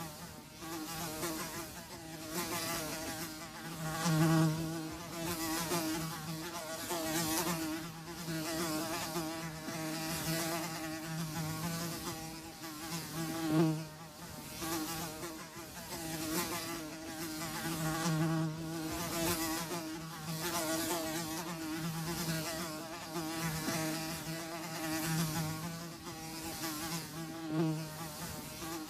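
Flies buzzing: a steady wing hum that swells and fades as they pass close, with louder passes about four and thirteen seconds in.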